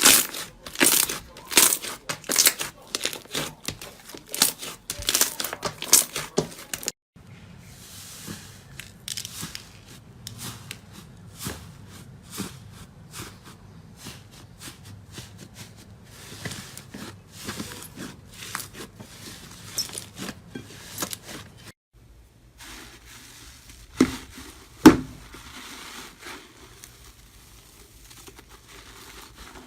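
Close-miked crackling and crunching of slime being pressed, pulled and squeezed for ASMR, with rapid sharp clicks and snaps that are densest in the first seven seconds. Abrupt changes about 7 and 22 seconds in mark switches to other clips, and two loud snaps come about 24 and 25 seconds in.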